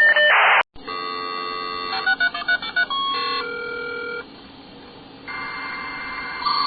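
Synthesized high-tech sound effects: a short beep and a hiss burst, then after a brief gap a steady electronic hum under a run of quick beeps at changing pitches, like a computer interface or keypad. The hum drops quieter for about a second in the second half, then comes back.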